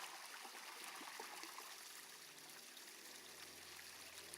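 Steady trickle of running water in a ducklings' bath.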